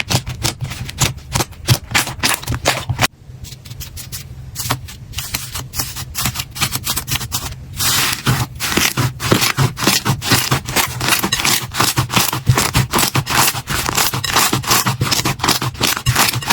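Slime being squeezed and pressed by hand, giving a dense run of sticky crackles, clicks and pops. The texture changes suddenly about three seconds in and again around eight seconds.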